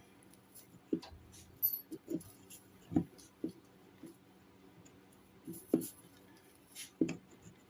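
Hot soldering iron tip being rubbed on a sal ammoniac block with flux and solder, giving irregular short scrapes and spitting crackles.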